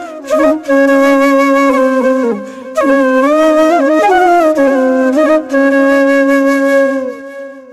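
Background music: a flute melody of long held notes that slide in pitch, with short breaks between phrases, fading out near the end.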